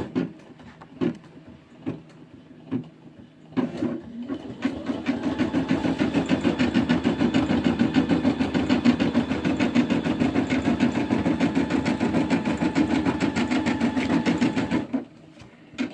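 Brother Innov-is M280D embroidery machine stitching a design, a fast, even needle rhythm with a steady hum that starts about three and a half seconds in and stops shortly before the end. Before it starts there are only a few light clicks.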